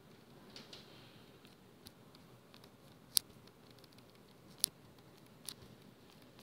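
Stylus on a tablet screen during handwriting: faint scratching and a few sharp taps, the loudest about three seconds in.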